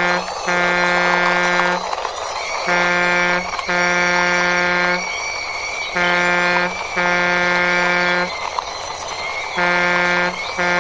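Toy fire truck's electronic sound module playing a buzzy horn in short-then-long pairs, four pairs about three seconds apart. A faint high wavering tone runs between the honks.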